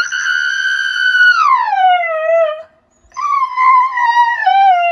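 Husky howling: a long, high howl that holds its pitch, then slides down. After a short break about three seconds in, a second, wavering howl follows.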